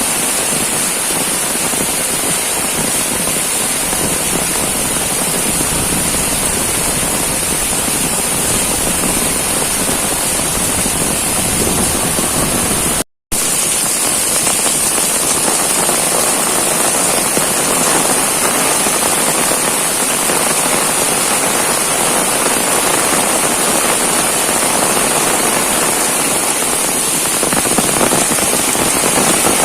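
Heavy rain pouring steadily, a dense even hiss. It cuts out completely for an instant about thirteen seconds in.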